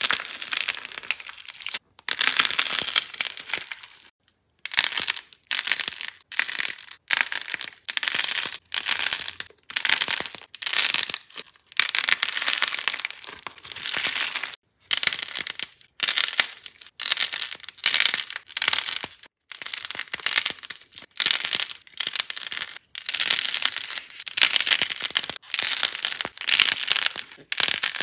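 Hands squeezing and crushing crumbly pink material coated in gold foil and glitter: dry crunching and crackling with foil crinkling. It comes in short runs of a second or two, cut apart by brief silences.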